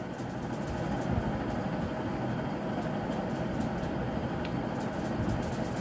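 Steady background hum and noise, like a fan or distant machinery, with a few faint clicks.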